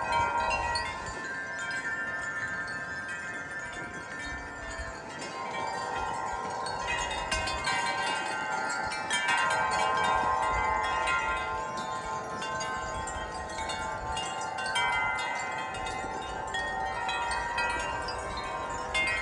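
Several wind chimes ringing continuously in gusty wind, many overlapping tones swelling and fading as the gusts push the chimes, with wind rumbling at times.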